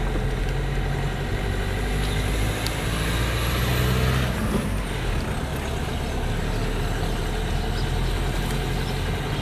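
Car engine running and tyres on the road, heard from inside the cabin while driving; the engine note changes about halfway through.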